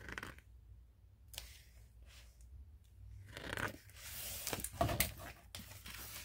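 Paper pages of a hardcover picture book being turned: about halfway through, a couple of seconds of rustling and sliding with a few sharp flicks.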